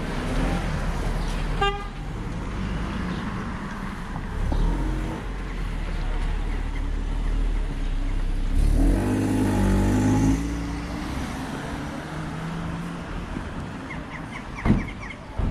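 City street traffic: a steady rumble of car engines, with a vehicle horn sounding for nearly two seconds about halfway through. A short sharp knock comes near the end.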